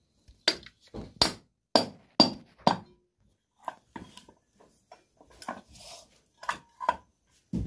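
Sharp metallic knocks and clinks of tools on a ceiling fan's metal parts as it is taken apart to reach its jammed bearing. About six hard strikes come in the first three seconds, then lighter, scattered clicks.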